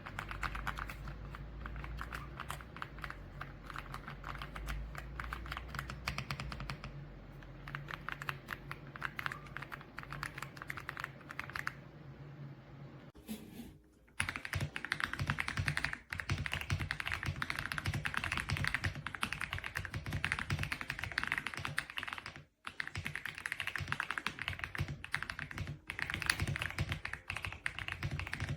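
Fast continuous typing on an Aula F99 mechanical keyboard with Graywood V3 switches, a steady patter of key clicks. The typing breaks off briefly about halfway, then carries on louder.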